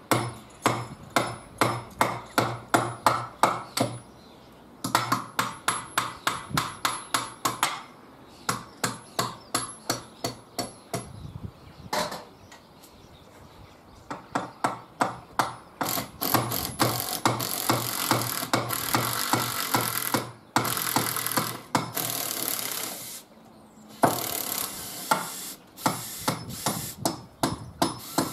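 Hammer blows on a timber wall plate, about four a second in two runs with a short pause, each with a slight metallic ring. About halfway through, a cordless drill takes over, running in several long bursts into the timber and the wall behind it, stopping and starting between them.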